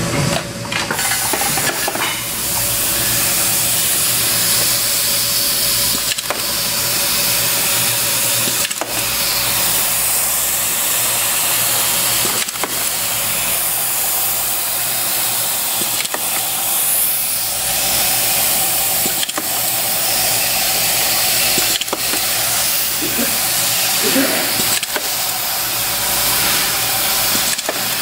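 Pneumatic hand-held clip setter gun installing push nuts (self-retaining expansion nuts) into a plastic instrument-panel sub-structure. It gives about nine sharp clicks, one roughly every three seconds, over a steady hiss and hum of compressed air and machinery.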